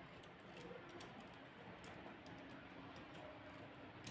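Faint, scattered small clicks and rustles of hands handling the wiring and plastic parts of a partly disassembled HP LaserJet P1102 laser printer.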